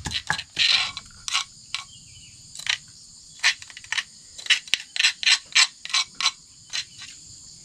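A run of about a dozen irregular sharp cracks and snaps from plant stalks being cut with a blade, coming faster in the second half. Insects trill steadily underneath.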